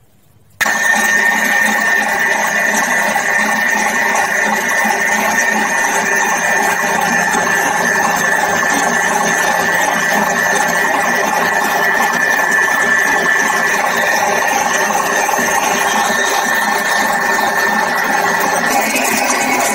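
Electric stand mixer switching on about half a second in and then running steadily with a high motor whine, its wire balloon whisk beating cooked egg whites and sugar into meringue in a stainless steel bowl.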